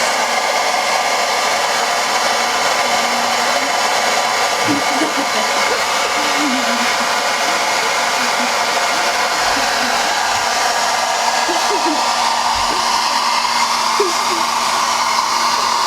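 Handheld hair dryer running steadily, a constant rush of air with an unchanging motor whine.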